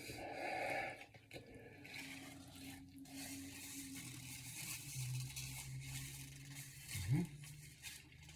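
A man's low, closed-mouth moan held for several seconds in reaction to the burn of Carolina Reaper-spiced chicken, ending in a short rising 'mm' about seven seconds in. Soft rustling sounds near the start.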